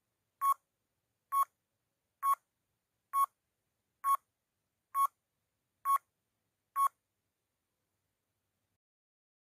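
Countdown timer sound effect: eight short beeps, one about every second, that stop shortly before the end.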